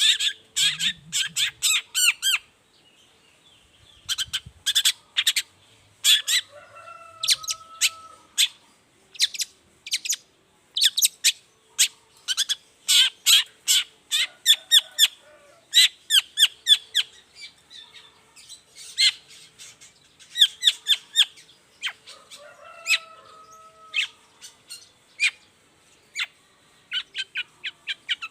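Long-tailed shrike (cendet) singing in rapid runs of short, sharp chattering notes, broken by brief pauses, with a lower drawn-out whistled phrase twice.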